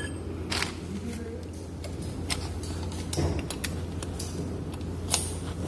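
Scattered metal clinks and taps, about five or six in all, from hand tools and bolts on the steel flange of a chilled-water strainer cover as it is bolted back up. A steady low hum runs underneath.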